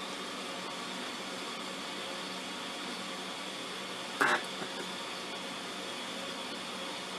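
A single short, sharp snap about four seconds in from a Sunkko 709AD spot welder firing its pen electrodes through 0.1 mm nickel-plated steel strip laid over 0.1 mm copper sheet onto an 18650 lithium cell, the welder turned up to its maximum setting. A steady low hum runs underneath.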